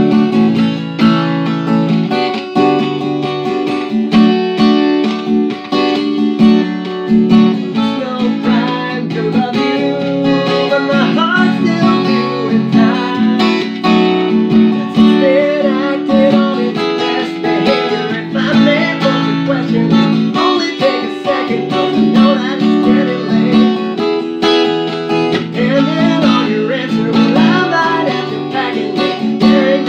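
Acoustic guitar strummed in a steady rhythm, with a man singing along from about ten seconds in.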